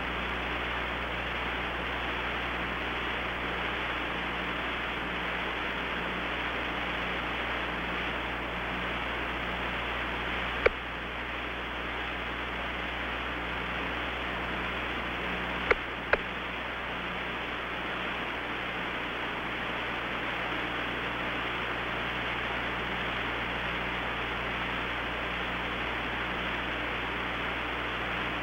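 Steady radio hiss on the Apollo spacecraft-to-ground voice loop with nobody talking, over a faint low hum. Three sharp clicks cut through it, one a little before halfway and two close together a little after halfway.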